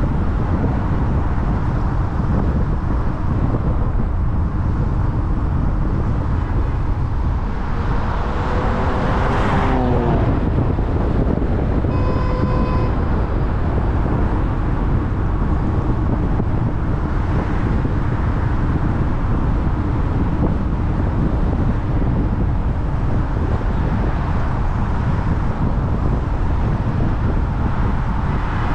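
Steady road and tyre noise of a car driving in city traffic. About nine seconds in, a passing vehicle swells and its engine note falls as it goes by. A few seconds later comes a brief beep.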